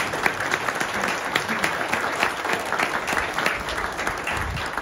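A crowd applauding: many hands clapping steadily together.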